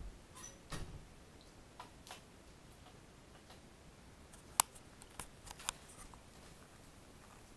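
A few scattered small clicks and soft rustles, with one much louder sharp click about four and a half seconds in and a quick run of smaller clicks just after it.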